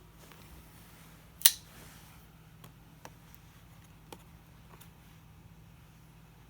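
Knife packaging being opened by hand: one sharp snap about a second and a half in, then a few light clicks as the folding knife is worked free.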